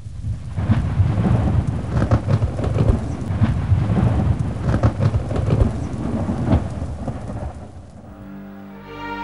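Thunder rumbling over heavy rain, fading out about eight seconds in as string music begins.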